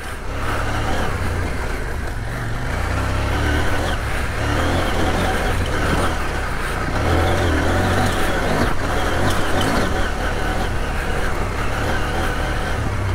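CF Moto 800MT Touring's parallel-twin engine running at low revs on a rough dirt track, the revs rising and falling a little.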